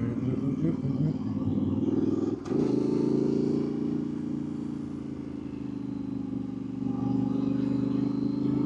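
Yamaha Tenere 700's 689 cc parallel-twin engine running while riding, heard from the bike. About two and a half seconds in the sound drops briefly with a click, then it runs on steadily.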